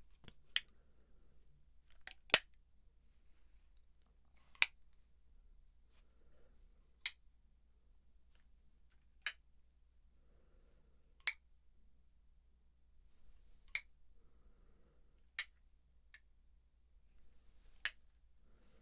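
Nine short, sharp clicks about two seconds apart, some louder than others, from a large and a small hand-held sound-maker sounded one at a time as a test of whether the listener can tell them apart.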